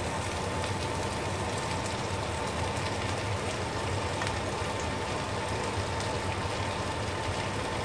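Onion and red peppers sizzling steadily in olive oil in a frying pan as fried aubergine is tipped in, with a low steady hum underneath.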